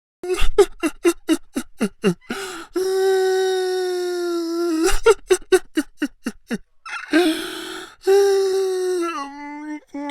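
A man crying hard: a quick run of gasping sobs, then a long held wail, more sobs, and a second wail near the end that breaks downward in pitch.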